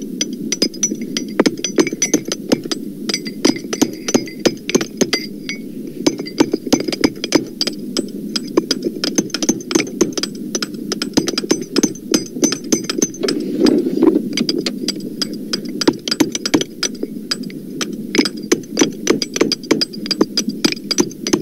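Hammers striking in quick, irregular succession, several knocks a second with a faint metallic ring, over a steady low rumble. The recording has been pitched down to sound deeper.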